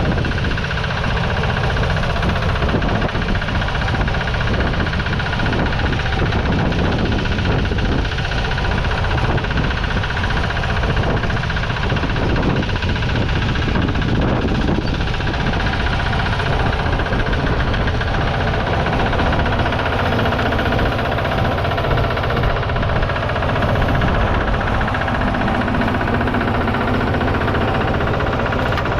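Petter PD1 600cc single-cylinder diesel engine of a 1962 Crawley mini tractor running steadily, with a rapid knocking beat.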